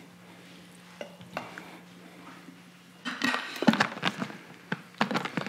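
Clinks, knocks and clatter of hard objects being handled and set down, starting about three seconds in after a quiet stretch with a faint steady hum.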